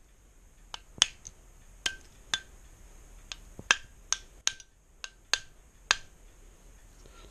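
Multitool pliers' cutting jaws snipping through the thin sterling silver shell of a weighted candlestick: about a dozen sharp snaps at irregular intervals, roughly two a second.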